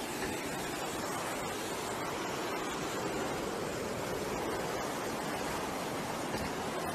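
Breaking ocean surf: a steady rush of waves washing in.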